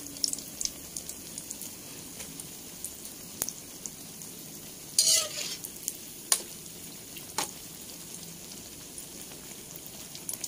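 Flour-coated eggplant slices frying in hot oil in a wok: a steady sizzle with scattered crackles, as they are fried on toward golden and crisp. A metal spatula clinks against the wok a few times, loudest about five seconds in.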